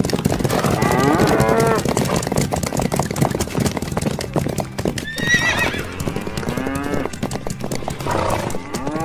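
A stampeding herd: many hooves drumming rapidly and without a break, with loud animal calls over it, one about a second in, a higher-pitched one about five seconds in, and more near the end.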